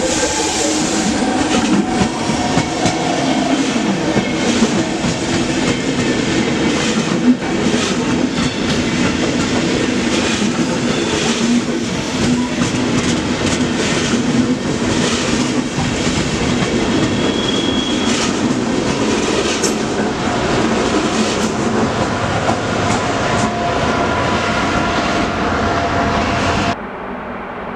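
A locomotive-hauled passenger train rolling past close by, its wheels clicking over rail joints and points over a steady rolling noise and a low steady drone. The sound cuts off abruptly near the end.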